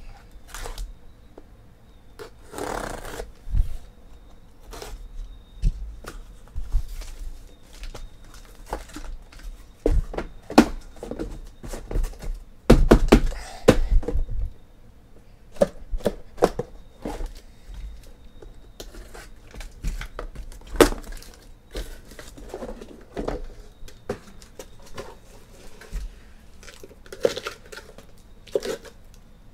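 A cardboard shipping case being slit and torn open with a knife and its flaps pulled back, then the sealed card boxes inside lifted out and set down: tape and cardboard tearing and scraping amid an irregular run of knocks and thuds, loudest in a cluster about halfway through.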